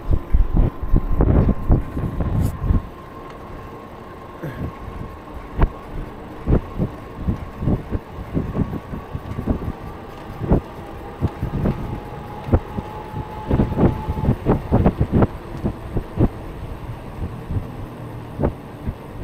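Wind buffeting the microphone of a bike-mounted action camera while riding, heaviest in the first couple of seconds. Irregular sharp knocks and rattles run throughout, with a faint thin whine underneath.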